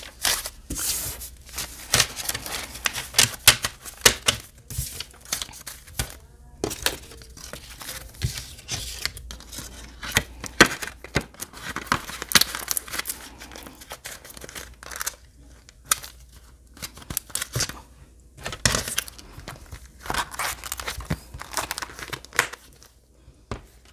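Paper banknotes rustling and crinkling as a stack of cash is squared up and slid into a paper envelope, with irregular crisp rustles and light taps throughout. Near the end a wallet is handled.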